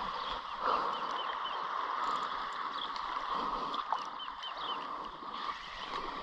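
Shallow water washing and lapping at the edge of a flat tidal beach, a steady wash of sound, with runs of faint quick high chirps over it.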